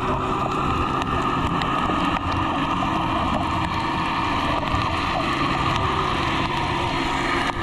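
Underwater ambient sound picked up by a GoPro in its waterproof housing: a steady rushing noise with many faint scattered clicks.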